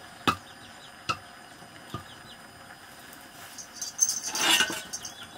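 A metal spatula knocking on a cooking pot three times, a second or so apart, then a short, louder burst of clattering and rustling about four seconds in.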